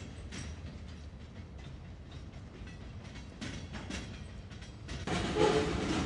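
Freight cars rolling past at low speed, a steady low rumble with the wheels clicking over rail joints, some clicks in pairs. About five seconds in the sound jumps suddenly to a louder, closer passing freight train.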